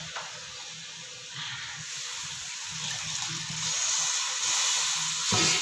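A stream of water poured into a pot of frying tomato-and-spice masala, a splashing hiss that grows louder about a second and a half in and again near the end.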